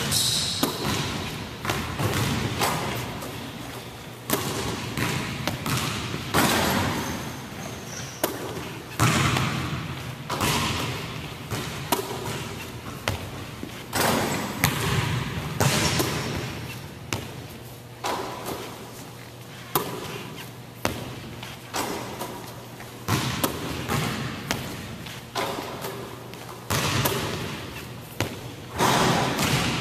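Basketballs bouncing on a hardwood gym court: repeated irregular thuds, one after another, each ringing on briefly in the large hall.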